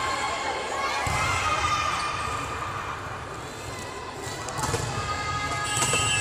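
Voices of players and spectators echoing around a sports hall, with a volleyball bouncing on the court floor a few times in the second half.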